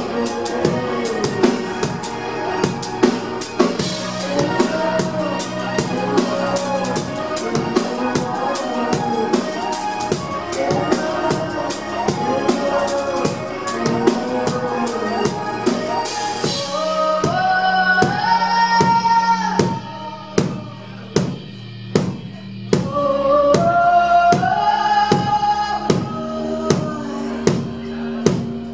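Live electropop band music: a steady drum-kit beat with bass drum and snare under keyboards. The music dips in level briefly a little past two-thirds of the way through.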